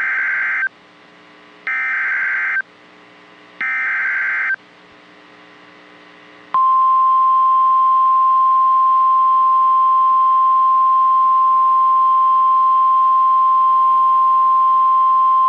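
Emergency Alert System SAME header: three short buzzy digital data bursts about a second apart. About six seconds in comes a steady single-pitch tone, the NOAA Weather Radio 1050 Hz warning alarm tone, which holds unchanged to the end. It signals the start of a new warning broadcast.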